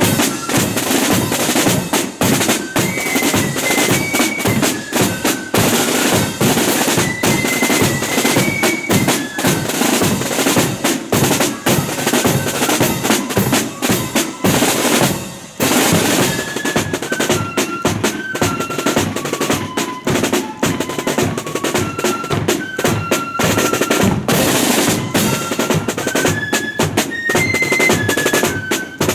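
A marching flute band playing: snare drums rattling and a bass drum beating under the flutes' high melody. The music breaks off briefly about halfway through and then starts again.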